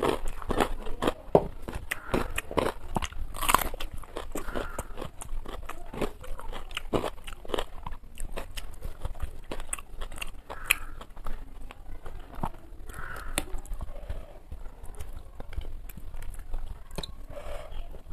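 Close-miked eating: chewing and wet mouth clicks with small crunches, from rice and fried fish eaten by hand, in quick runs that thin out after the first few seconds.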